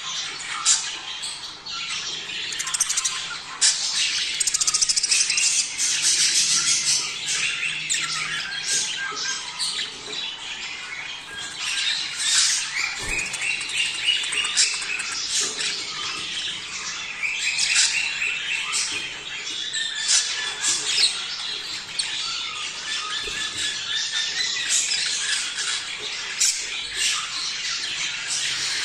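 A flock of budgerigars chattering and warbling nonstop, with overlapping chirps, trills and squawks: the breeding chatter of budgies ready to mate.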